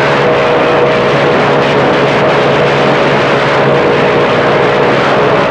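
Radio receiver static on a busy CB channel: steady loud hiss with two or three steady heterodyne whistles from overlapping carriers and a low hum that drops out near the end.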